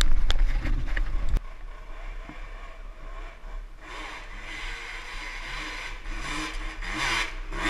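Dirt bike engines running, with pitch glides of revving near the end. For about the first second and a half a loud low rumble with sharp knocks covers them, then cuts off suddenly.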